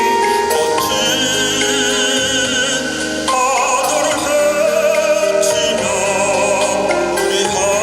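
A trot song performed live: a singer's voice with heavy vibrato over a full backing band.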